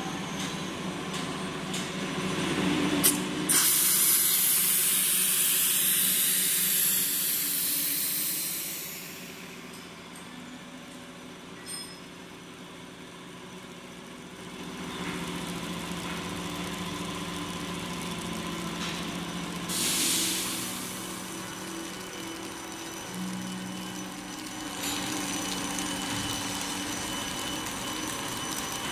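BOPP film folding machine with air feeding running: a steady motor hum under loud hissing bursts of air. One long burst starts about four seconds in and lasts about five seconds, a shorter one comes around twenty seconds in, and a sharp click comes just before the first burst.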